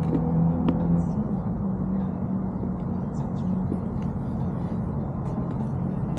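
Motorcycle engine running at a steady low pitch, with a constant rushing noise behind it.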